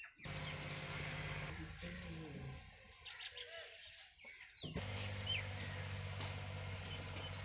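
Stationary diesel engine running steadily, a low even note with hiss above it. It cuts in abruptly, drops away for a few seconds, then comes back abruptly at a slightly lower pitch. Birds chirp now and then.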